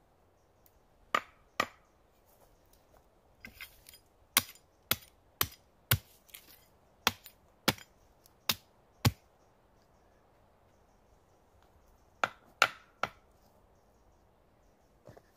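Hatchet chopping at a wooden stick: sharp strikes in bursts. There is a pair near the start, a steady run of about a dozen at roughly two a second in the middle, and three more near the end.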